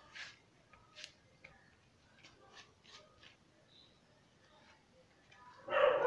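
Banana leaf rustling and crackling in short, faint bursts as hands fold it over the filling. Near the end a dog starts to howl, much louder, its pitch falling.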